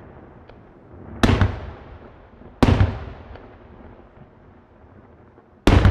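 Aerial fireworks shells bursting: three loud bangs, about a second in, again about a second and a half later, and once more near the end, each trailing off in a long rolling echo.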